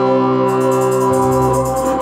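Live band music: a Roland E-70 keyboard holds a sustained, organ-like chord over the bass, joined about half a second in by fast, even high percussion strokes. The held chord breaks off near the end.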